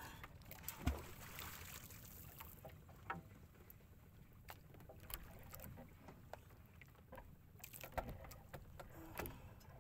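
Small wooden outrigger boat drifting with its engine off: a faint wash of water against the hull, with scattered knocks and bumps from the boat and its gear, the loudest about a second in and another near the end.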